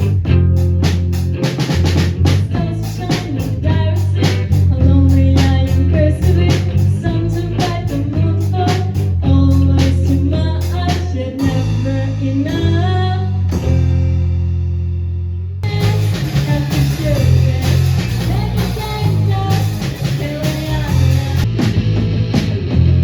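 A live rock band playing, with drum kit, electric guitar, bass and singing. The drums drop out about halfway through for a few seconds of held chords, then the full band comes crashing back in.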